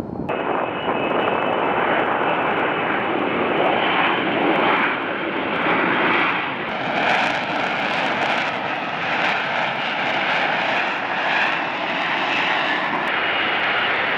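F-35B Lightning II fighter's jet engine running: a loud, steady rush of noise with a faint whine. It sets in abruptly just after the start.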